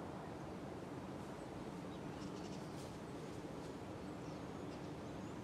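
44-inch Hunter Stratford II ceiling fan running on high speed: a steady airy whoosh with a faint low motor hum.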